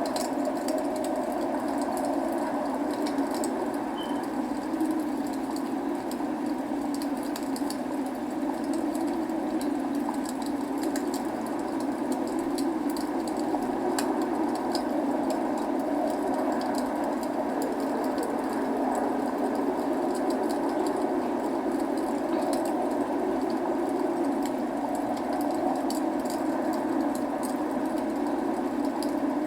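Steady rain hiss with a wood fire crackling, small scattered pops throughout.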